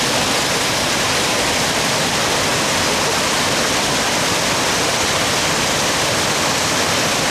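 Stream in flood after heavy rain, with a loud, steady rush of fast-moving floodwater.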